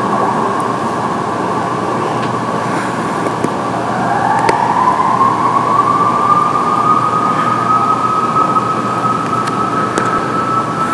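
Siren wailing with an air-raid-like sound: one tone holds steady, then about four seconds in a second tone rises in pitch and holds high.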